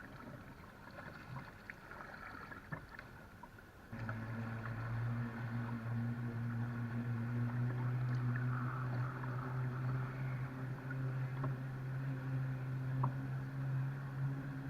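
Jetski engine running at a steady speed, a low even hum that comes in suddenly about four seconds in and holds steady while it tows a string of rafts.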